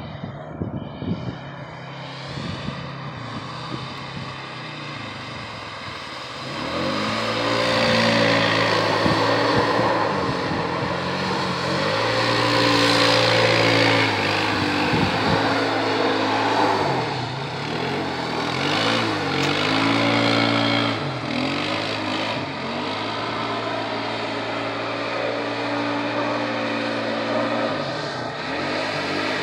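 Polaris Sportsman 570 ATV's single-cylinder four-stroke engine running and revving up and down again and again as the quad spins circles on lake ice. It is quieter for the first six seconds or so, then louder.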